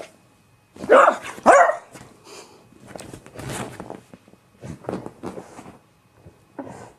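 Beagle barking: two loud barks about a second in, half a second apart, then several quieter, shorter barks.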